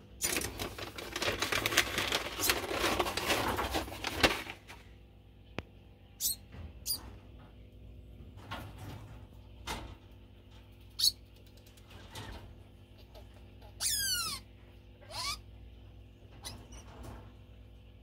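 Degu in a wire cage: rustling and rattling for the first four seconds or so, then scattered light clicks, and about fourteen seconds in two high-pitched squeaks that fall in pitch, a second apart. This is the degu's food-begging call.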